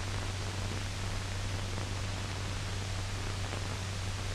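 Steady hiss with a low hum underneath, the background noise of an old film's optical soundtrack.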